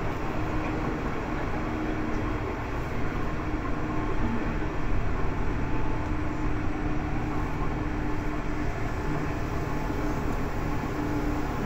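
Seibu 2000 series electric train running at a steady pace, heard from inside the car: a loud, continuous rumble of wheels on rail with a steady hum from the motors and gears.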